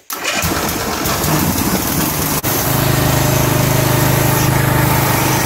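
Small gasoline engine on a home-built log splitter starting up the moment it is cranked and then running steadily, now that its spark plug lead is connected. The sound drops out for an instant about two and a half seconds in, then goes on steady and a little stronger.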